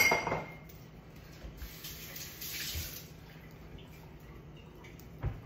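A glass clinks and rings briefly, then liquid runs for about a second, as from a tap or pouring into a glass. A dull thump sounds near the end.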